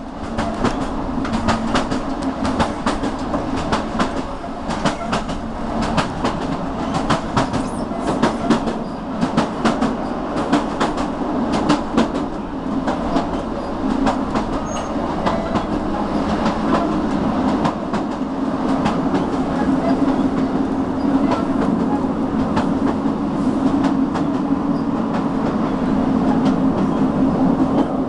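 Passenger train running on the rails, heard from inside a carriage: a steady rumble with quick clicks and rattles of the wheels over the track through the first half, settling into a smoother, even running sound after about thirteen seconds.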